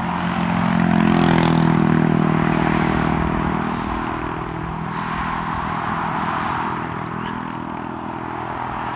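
A motor vehicle going past on the road, its engine drone and tyre rush loudest a second or two in and then slowly fading away.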